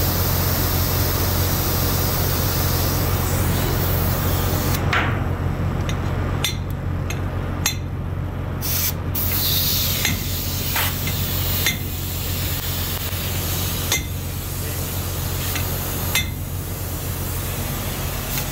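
Hammer blows on a steel pipe used as a drift, driving a bearing down onto an electric fan motor's shaft. About ten sharp metallic strikes come at uneven gaps of a second or two, starting about five seconds in, over a steady low machinery hum.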